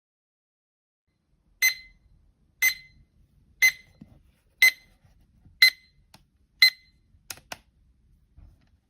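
Kids' alarm clock sounding its alarm: six short high beeps, about one a second, then two sharp clicks near the end.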